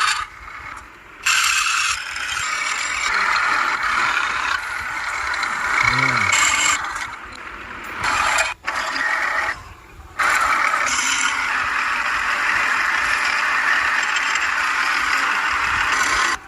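Steady scraping of a tool cutting wood as it is shaped round, stopping briefly a few times.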